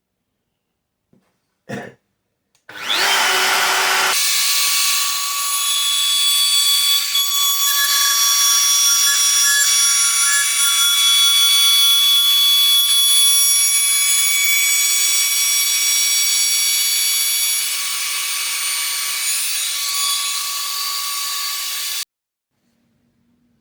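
Router carried on a flattening jig starting up with a rising whine, then running at speed with a steady high whine while it mills the work, and stopping abruptly after about twenty seconds. A short knock comes just before it starts.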